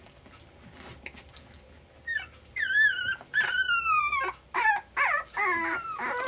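French bulldog puppy crying: a run of about six high, wavering whines starting about two seconds in, the longest a drawn-out cry that falls in pitch.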